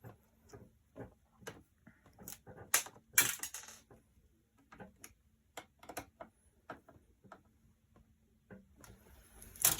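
Scattered clicks and light metallic knocks of computer hardware and screws being handled while a graphics card and riser cable are fitted into a small PC case, with a louder rattle about three seconds in. Right at the end a small screw drops and clatters.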